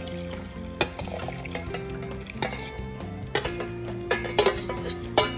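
Metal kitchen utensils and vessels clinking, a handful of sharp irregular clinks with the loudest near the end, while boiled vegetables and their cooking water are transferred into a mixer jar. Background music with steady held notes plays under it.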